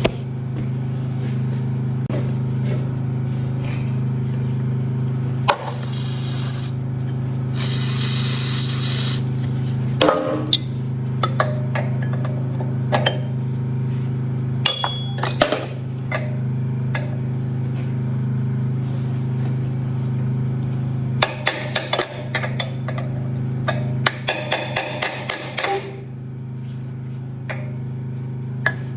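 Metal hand tools clinking and clanking in irregular knocks, with clusters of quick clinks toward the end, over a steady low hum. Two short hissing bursts come a few seconds in.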